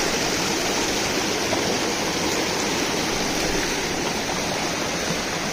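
A small rocky stream rushing over stones: a steady, even rush of flowing water close by.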